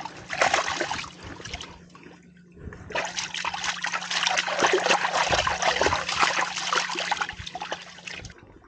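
Water splashing and trickling in two spells: a short one at the start, then a longer, louder one from about three seconds in that stops shortly before the end.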